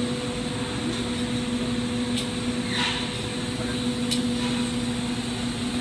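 Steady hum and even rushing noise of running glassblowing-shop equipment, with a couple of faint clicks and a short falling whistle about halfway through.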